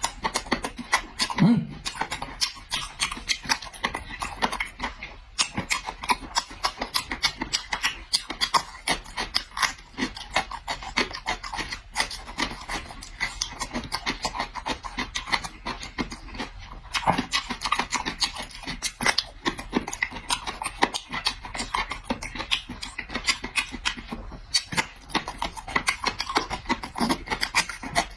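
Chewing pig ear: rapid, irregular crunching of the cartilage, mixed with wet mouth smacks.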